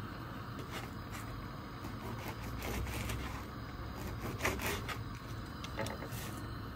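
Crusty stale bread crunching and crackling as a knife cuts through its crust and hands break it on a wooden cutting board: a run of short, sharp crunches, the loudest about four and a half seconds in.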